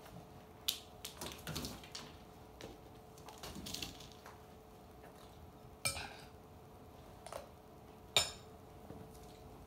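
Soft scuffs and light cardboard knocks as a cat slips into a cardboard box on a wooden floor, followed later by a few sharp clicks, the two loudest about six and eight seconds in.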